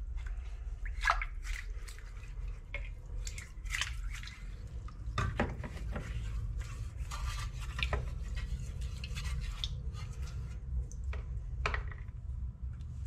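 Citric acid solution dripping and splashing, with scattered light knocks, as soaked steel car body panels are lifted out of the bowl and handled.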